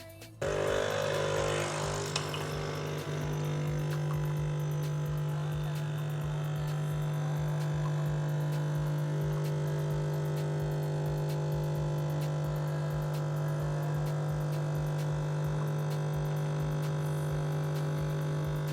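A steady low machine hum that starts suddenly about half a second in and holds unchanged, with a hiss over it for the first two seconds.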